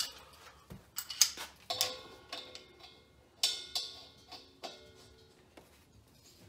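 Metal hose fitting knocking against the valve and collar of a steel propane cylinder as it is threaded on by hand: several sharp metallic clinks, each leaving a brief ringing tone.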